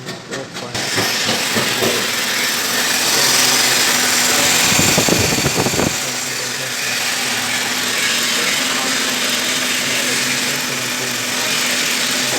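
Toyota Yaris running with its air conditioning on full, a steady rushing hiss of blown air over a low engine hum; a brief louder rumble comes about five seconds in.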